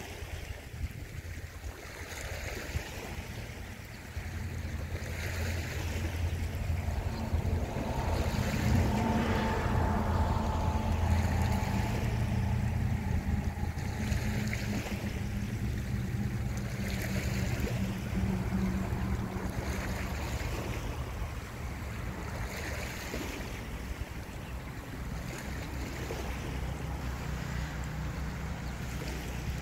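Small waves lapping against a rocky shore every few seconds, under the low hum of a distant boat engine. The hum swells from about four seconds in, is loudest around the middle, then eases off.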